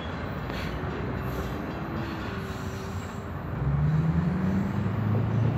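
Freight train's rear hopper and tank cars rolling away over the rails, with faint wheel squeal. About three and a half seconds in, a louder low engine hum rises.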